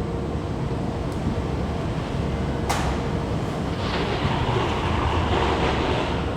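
Car assembly plant machinery: a steady low rumble with a sharp clank a little under three seconds in, then a hiss lasting about two seconds.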